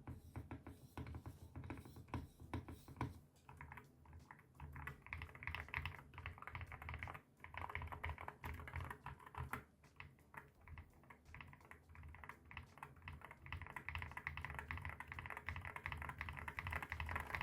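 Akko Rosewood linear mechanical keyboard switches, factory-lubed, typed on in a fast, continuous stream of keystrokes. The clacks grow denser and louder near the end.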